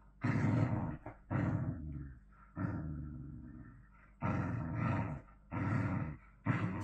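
Whippets play-fighting, one growling in a run of short, rough growls, one every second or so.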